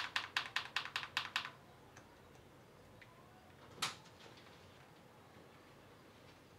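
Mechanical keyboard with Akko silent switches being typed on, heard faintly from about a metre and a half away: a quick run of about ten soft keystrokes over the first second and a half. About four seconds in comes a single louder key click from a key that makes the ordinary, unsilenced sound for comparison.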